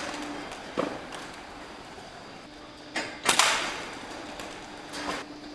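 PCP air rifle being worked and fired: a sharp click a little under a second in, then a click and a louder crack about three seconds in, and a softer knock near the end, the sounds of a bolt being cycled and a shot fired.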